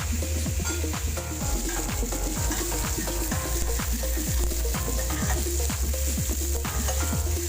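Chicken pieces frying in a pan, sizzling and crackling steadily over a constant low hum.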